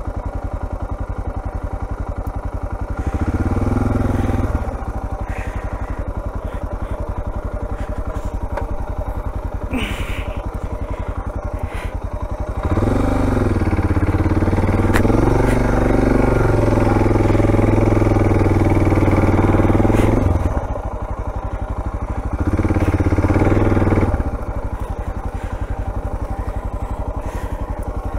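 Suzuki DR dual-sport motorcycle's single-cylinder engine running on a trail, opening up briefly a few seconds in, again for about eight seconds from the middle with the pitch dipping and then rising, and once more briefly near the end.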